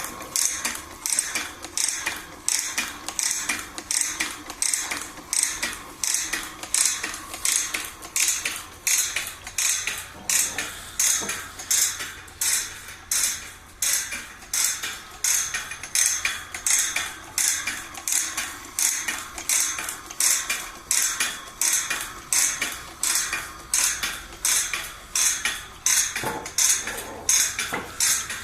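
Automatic bandsaw blade tooth-setting machine running, its mechanism stepping the blade along and bending each tooth with a sharp metallic click, about two strokes a second in an even rhythm.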